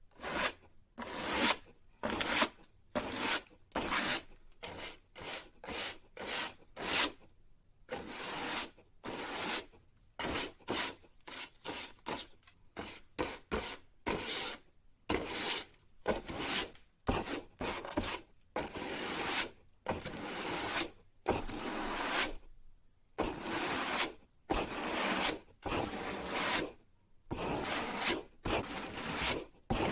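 Broom sweeping: a run of short brushing strokes, a little more than one a second, with a few brief pauses between runs.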